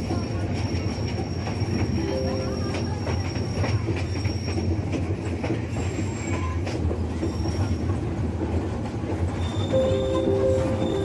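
Miniature ride-on park train running along its track: a steady rumble and rattle of the carriages and wheels on the rails.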